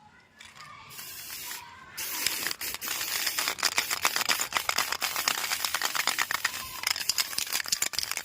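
Aerosol can of black spray paint hissing as it is sprayed onto a rusty motorcycle saree guard: a short burst about a second in, then one long continuous spray from about two seconds in.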